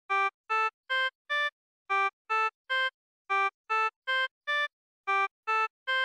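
Short synthesized chiptune beeps made in BeepBox, fourteen in all. They come in quick rising runs of four, three, four and three notes, each run starting again from the same low note.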